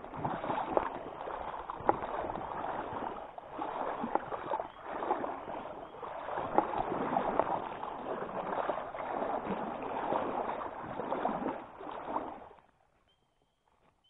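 Legs wading through a shallow stream, water sloshing in swells with each step, stopping suddenly near the end.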